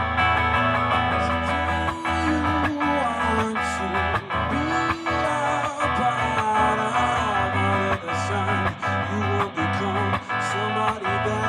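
Black hollow-body electric guitar strummed through an amplifier, playing a song live.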